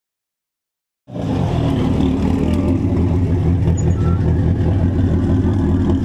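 Ford Escort Cosworth rally car's turbocharged four-cylinder engine idling steadily. It cuts in abruptly about a second in.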